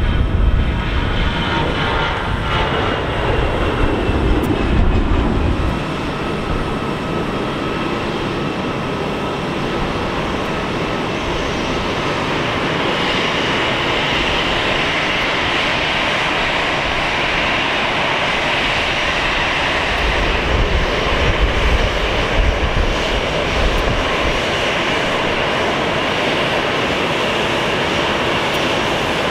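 Jet airliner engines: the low roar of an Airbus A320 at takeoff power, with a falling tone, dying down over the first few seconds. Then the steady high whine of an Airbus A319's engines as it taxis, with a low rumble swelling briefly later on.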